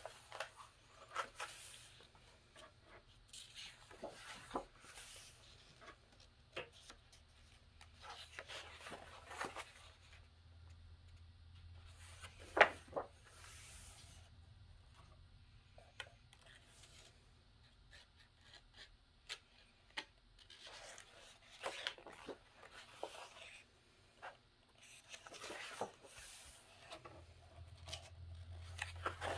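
Paper pages of a coloring book turned one after another in a slow flip-through: repeated short swishes of paper with occasional light taps. The sharpest tap comes about twelve and a half seconds in.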